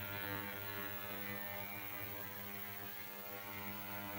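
Ultrasonic cleaner running with a steady buzzing hum.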